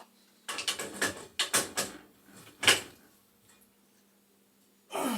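Metal tools and gas pipe fittings clanking and scraping as a threaded fitting is worked and tightened: a run of sharp knocks and scrapes in the first three seconds, then another near the end.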